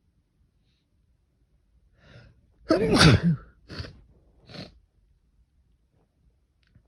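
One loud sneeze in a sneezing fit, set off by a short intake of breath and voiced, its pitch falling, followed by two short sharp breaths.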